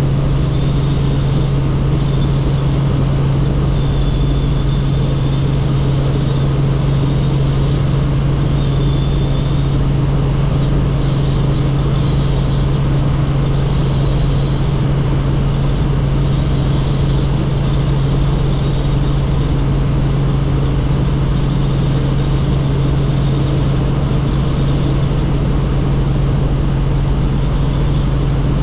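Helicopter in flight: a loud, steady engine and rotor drone with a strong low hum.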